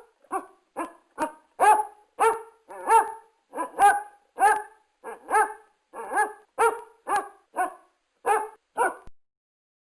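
A dog barking repeatedly at about two barks a second, some seventeen barks in an even run that stops abruptly shortly before the end.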